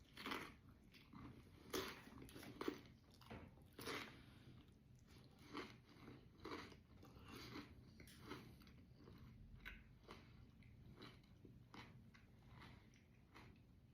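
A person biting into and chewing a chamoy pickle piled with Takis and Doritos: irregular crisp crunches, the loudest in the first four seconds, then softer chewing.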